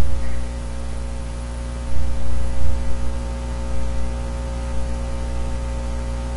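Steady electrical hum with hiss from the recording microphone, with no other sound source apparent; a few soft low bumps near the start and about two seconds in.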